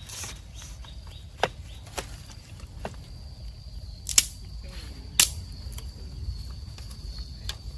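Wood fire crackling, with a few sharp irregular pops, over a steady high-pitched insect drone.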